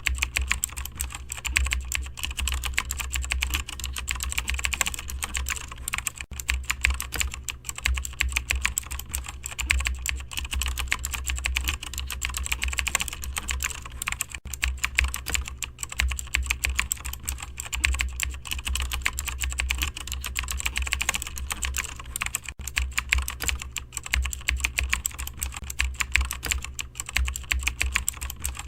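Computer keyboard typing: a fast, continuous run of keystroke clicks, with a low steady hum underneath.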